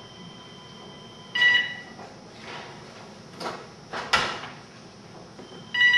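A telephone rings briefly about a second and a half in and starts ringing again at the very end. In between, a kitchen oven door is shut with two clattering knocks while a pizza is handled on a wooden peel.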